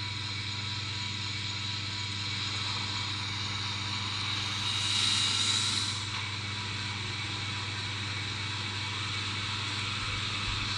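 Steady engine-like hum with faint steady tones, and a brief louder rushing hiss about five seconds in.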